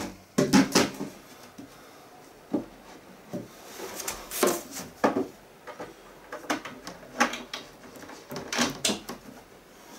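Wooden cabinet panels knocking and clunking as they are handled and fitted together, several separate knocks spread through.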